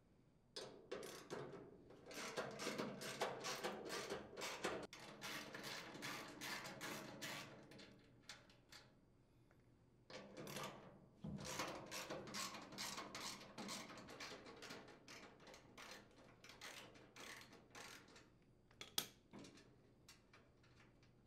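Socket ratchet clicking rapidly as it unthreads nuts from the chipper shredder's sheet-metal housing, in two long runs with a short pause about eight seconds in.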